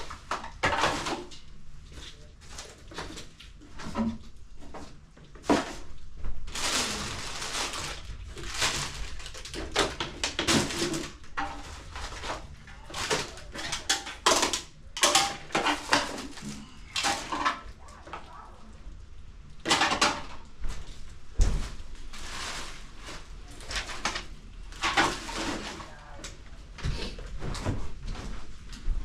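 Rustling, scraping and occasional knocks of household junk, clothing and trash being handled and cleared out by hand, in irregular bursts with short pauses.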